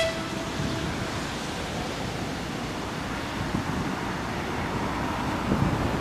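Wind rushing and buffeting on the microphone, over the low running noise of an approaching Lastochka electric train. The last note of a train horn dies away in the first second.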